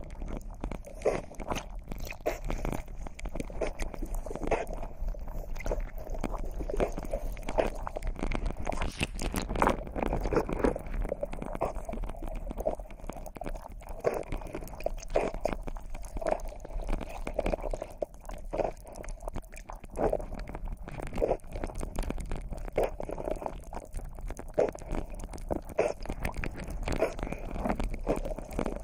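Underwater sound picked up through an action camera's waterproof housing: a steady run of irregular clicks, knocks and crackles as the diver swims along the seabed.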